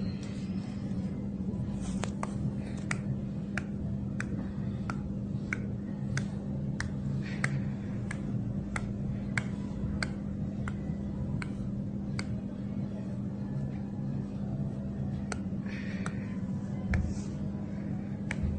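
Sharp, evenly spaced snapping clicks, about three every two seconds, as fingers pinch the skin of the neck and shoulder, pull it up and let it slip in jiu sha skin-pinching, over a steady low hum.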